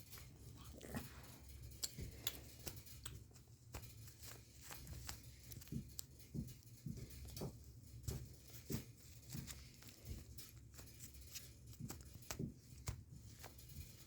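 Faint, scattered small taps and rustles from a plastic dinosaur toy and sprigs of cilantro being handled, over a steady low hum.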